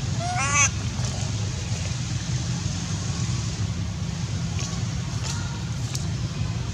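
A short, high squeal from a young long-tailed macaque about half a second in, over a steady low rumble. A fainter call and a few light clicks follow later.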